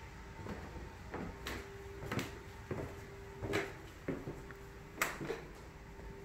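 Footsteps climbing a staircase: a series of irregular soft thuds roughly every half second to second, the sharpest about five seconds in.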